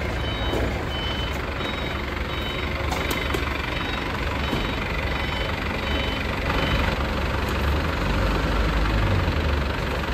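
Heli K35 3.5-tonne forklift engine running under load, with its warning beeper sounding short high beeps about every 0.7 s for the first few seconds. The low engine rumble grows louder for the last couple of seconds as the forklift works the pallet up to the truck.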